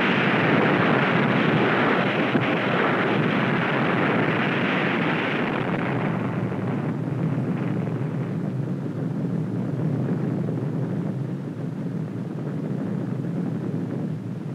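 A loud, rough rumbling roar on an old film soundtrack. It is already at full strength at the start, then grows thinner and quieter from about six seconds in.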